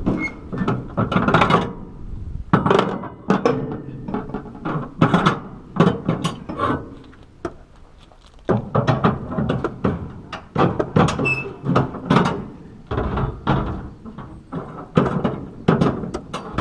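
Flatbed trailer strap winch being worked with a winch bar to loosen a cargo strap: repeated metal clanks and ratcheting clicks in short irregular bursts.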